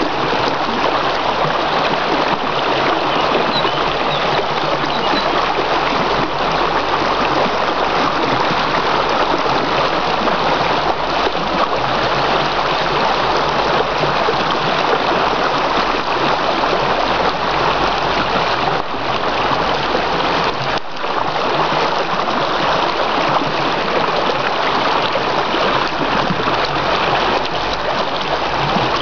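River water rushing steadily: a constant, even hiss of flowing current.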